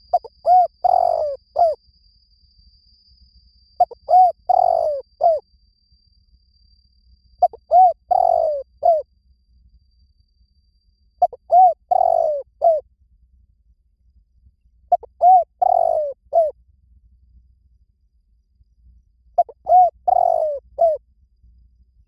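Spotted dove cooing: six repeated song phrases, one about every three and a half seconds. Each phrase is a few short coos around a longer falling coo, the call used as a lure for wild doves.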